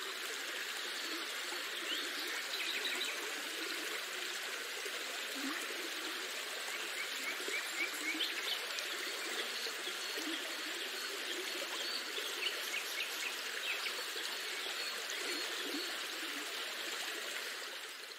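Small waves lapping and trickling at a lake's edge, with scattered high chirps over the top, fading out at the very end.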